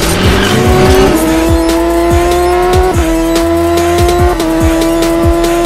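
Intro soundtrack: an electronic beat under a race-car engine sound effect. The engine revs up in the first second, then holds a high pitch that drops slightly twice, as if shifting gears.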